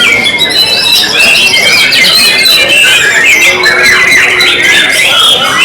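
White-rumped shamas (murai batu) singing loudly over one another: a dense stream of fast, overlapping whistles, trills and chattering phrases.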